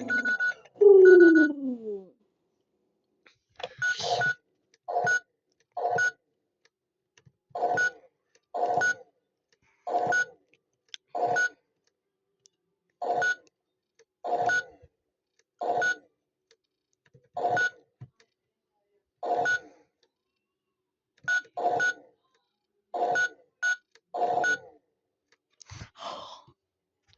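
Toy washing machine's electronic sounds: a falling tone about a second in, then a long run of short beeps, each with a click, coming roughly once a second with silence between.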